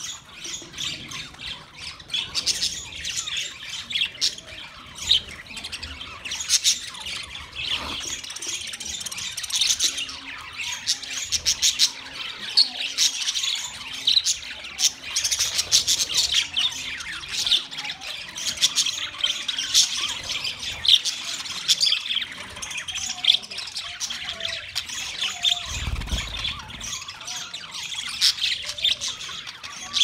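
A flock of budgerigars chattering continuously, with many overlapping sharp chirps and squawks.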